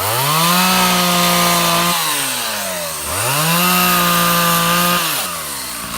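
Chainsaw revved up to full throttle twice, each time held for about two seconds before dropping back toward idle.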